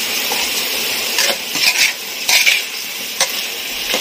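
Green chafer beetles sizzling as they fry in a metal wok, with a spatula scraping and clinking against the pan several times from about a second in.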